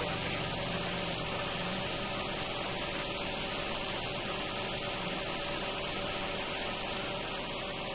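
Steady hiss with a faint steady hum beneath it, unchanging and without any distinct events.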